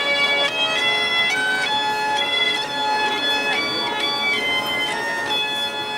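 Bagpipe music: a melody of held notes stepping from pitch to pitch over a steady drone.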